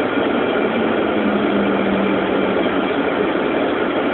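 Cabin noise of the Cessna Citation II's twin turbofan engines running while the jet rolls along the ground: a steady rush with a faint whine and a low hum that swells briefly in the middle.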